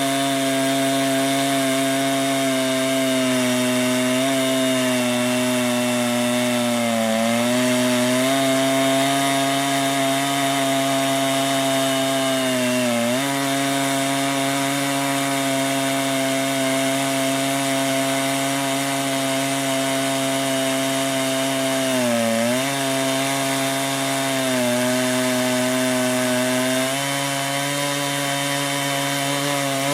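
Chainsaw running at high, steady revs while ripping a cedar log lengthwise in a chainsaw mill. Its pitch sags briefly three times as the cut loads it, then recovers.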